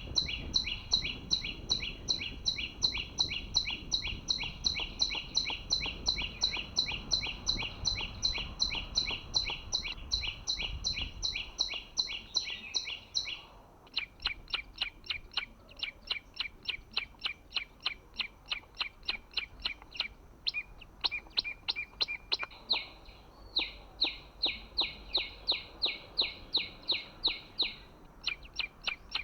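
A small songbird calling a fast, very regular series of sharp chirps, about three a second. About halfway through it changes to thinner, quicker ticking notes, then goes back to the fuller chirps near the end.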